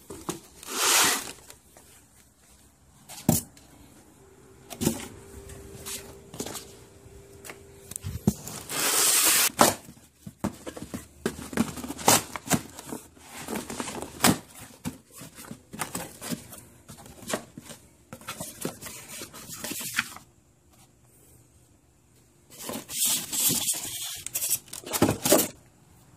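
Cardboard box and packing being handled and torn open: irregular rustling, scraping and tearing with sharp knocks of cardboard, in uneven bursts.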